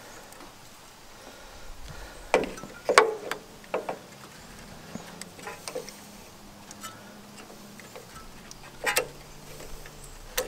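Scattered clicks and knocks of metal parts and tools being handled as a small engine's carburetor is worked loose, the loudest about three seconds in. A faint steady low hum runs under them from about two seconds in.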